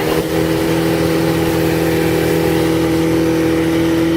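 Motorboat engine running at a steady speed, a constant pitched drone.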